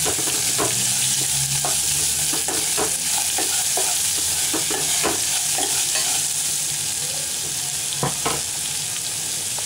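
Chopped onions and tempering spices sizzling in hot oil in a stainless steel pot, a steady hiss, while a spoon stirs them, clinking and scraping irregularly against the pot, most strongly about eight seconds in.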